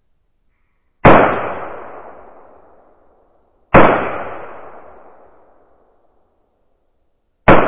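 Three shots from an AR-15-style rifle fired close by, spaced a few seconds apart: about a second in, near four seconds, and right at the end. Each shot is a sharp crack followed by a long echo dying away over about two seconds.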